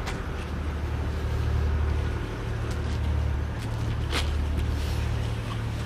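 Low, steady engine rumble with a few sharp clicks, one near the start and one about four seconds in.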